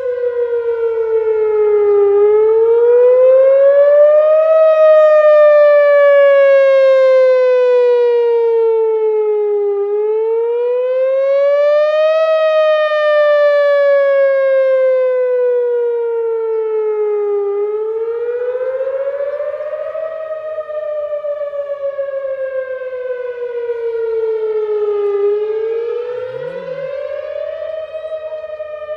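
Whelen WPS 3016 electronic outdoor warning siren sounding its wail during a routine test. It is a loud, steady tone that climbs quickly and sinks slowly, about four times, each rise and fall taking roughly seven to eight seconds.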